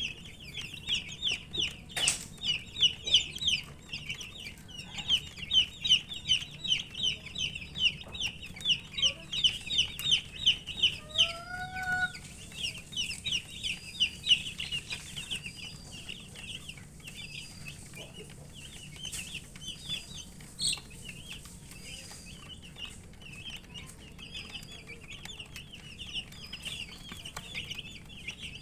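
A group of baby chicks peeping continuously, many short, high, rapid cheeps overlapping, busiest in the first half. The uploader puts the chirping down to thirst for drinking water.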